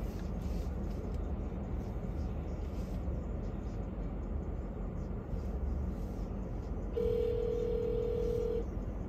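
Car driving, with steady low road and engine noise. About seven seconds in, a single steady electronic tone sounds for about a second and a half, then stops.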